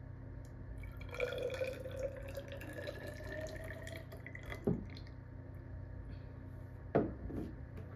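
Water poured into a plastic graduated cylinder, a trickling tone that rises slowly in pitch as the column fills, for about three seconds. Then two separate drips plink into it, the second near the end.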